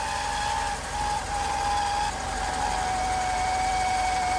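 1992 Mercedes-Benz 300E engine running with a steady high-pitched whine over it that drops slightly in pitch in the first two seconds. The whine comes from a failing water pump and shows up only on a cold start.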